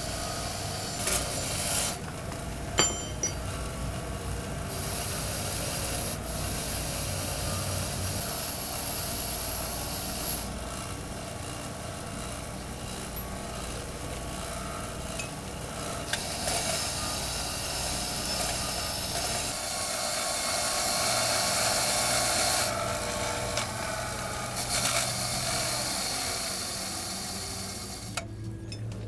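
Bench grinder running, a rusty steel pipe wrench pressed against the spinning wheel and ground to strip off the rust: a steady rasping grind over the motor's hum, its tone changing several times.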